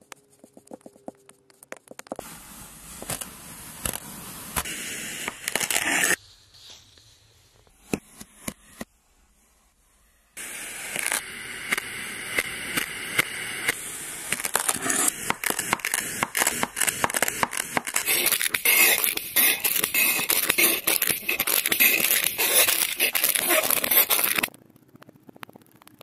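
Kinetic sand being cut and crushed with a knife: dense, crumbly crackling and crunching, in two stretches with a near-quiet pause of about four seconds between them. The second stretch is the longer and louder. Light ticks of sand being pressed come at the start and near the end.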